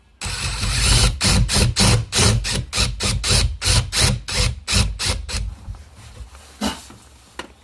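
Power drill boring into a wooden cabinet door with a larger bit, widening a screw hole into a recess for the screw head. The cutting comes in quick pulses, several a second, and stops about five seconds in.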